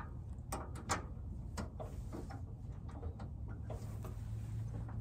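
A string of small irregular clicks and scrapes as a key is worked and turned in the keyhole lock of a Subaru Sambar truck's rear engine cover.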